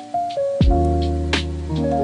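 Background music: held chords over a bass line, with a slow, steady drum beat.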